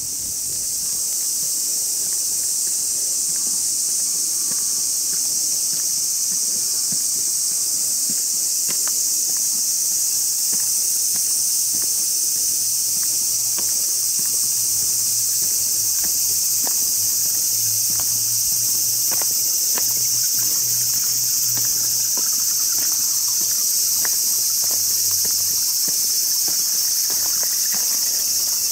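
A dense, steady chorus of summer insects, a high shrill drone that never lets up, with faint scattered light ticks underneath.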